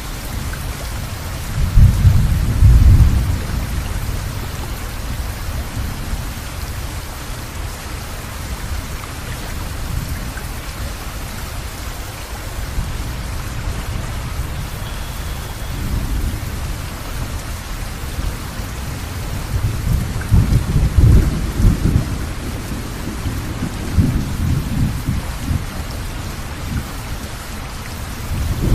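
Steady rain hissing, with rolling thunder. A loud low rumble comes about two seconds in, and a longer stretch of rumbling follows from about twenty seconds in.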